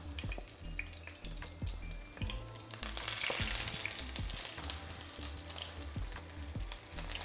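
Slices of salted eggplant sizzling in smoking-hot avocado oil in a stainless steel pan, with small sharp pops. The sizzle grows louder about three seconds in as a second slice goes into the oil.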